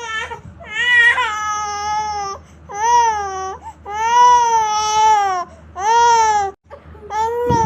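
A baby crying hard: a string of long, high-pitched wails, about five of them, each a second or more long with short breaks between.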